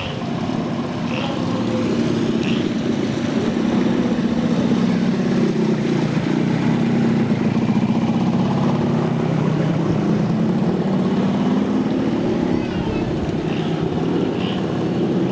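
Heavy rain falling steadily, a dense continuous downpour that builds slightly in the first couple of seconds and then holds. Short high chirps sound about once a second near the start and again near the end.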